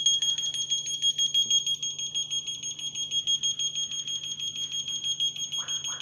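Home burglar alarm siren sounding a high-pitched, rapidly pulsing electronic tone, a little louder in the first second and then steady.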